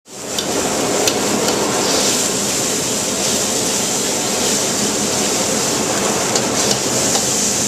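Restaurant wok burner's gas flame running steadily under a carbon-steel wok, with food sizzling and a few light metal clicks of the ladle against the wok.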